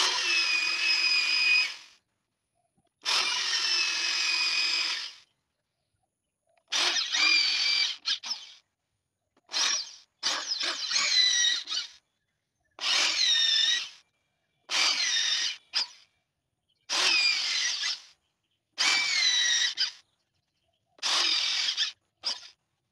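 An electric drill bores into a solid block of wood in about ten short runs of one to two seconds each, separated by silent gaps. The motor's whine sags in pitch as the bit bites into the wood, then picks up again.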